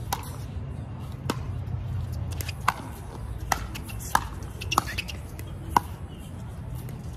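Pickleball rally: a composite paddle striking the hollow plastic ball back and forth, with the ball bouncing on the hard court. About six sharp pops come roughly a second apart.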